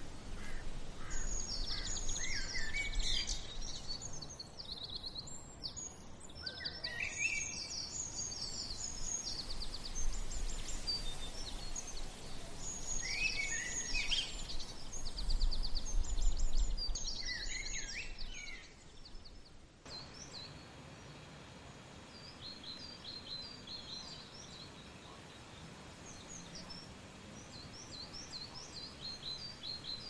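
Several small songbirds chirping and trilling in woodland, busy and overlapping at first, then fainter and sparser after a sudden drop in level about two-thirds of the way through.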